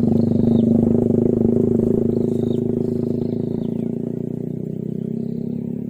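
Small engine running steadily, loudest about half a second in and then slowly fading. Short, repeated bird calls sound above it.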